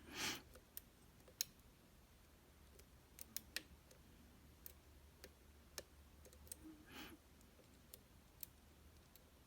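Faint, irregular sharp clicks, about a dozen, from a lock pick and tension tool working the pins and sliders inside an M&C Condor lock cylinder. Two soft puffs of noise come near the start and about seven seconds in.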